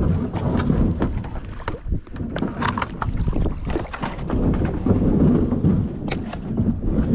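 Kayak on the water: wind buffeting the microphone and water noise, with scattered clicks and knocks.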